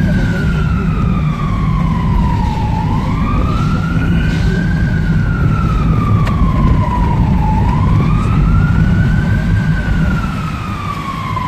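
An emergency vehicle's siren on a slow wail, rising and falling about every five seconds, heard from inside a moving car over steady road and engine rumble.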